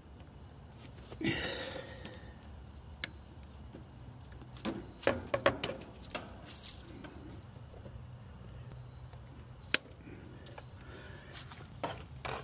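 Sharp snips of side-cutting pliers cutting plastic zip ties off misting-system tubing, several scattered clicks with a quick run of them about five seconds in, and handling rustle of the tubing in between.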